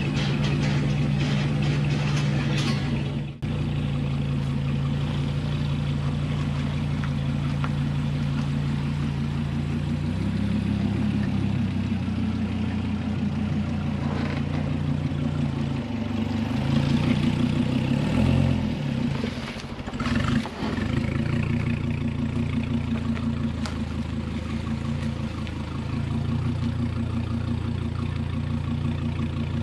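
A vehicle engine idling steadily, its note shifting slightly about ten seconds in and again a few seconds later, with two brief dropouts.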